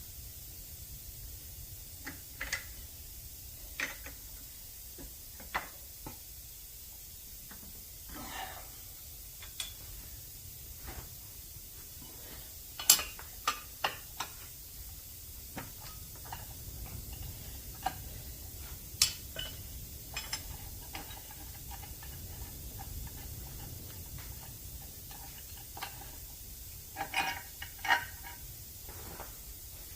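Irregular metal clinks and knocks of tools and cast-iron castings being handled, over a low steady machine hum; the sharpest knocks come about 13 and 19 seconds in, with a few more near the end.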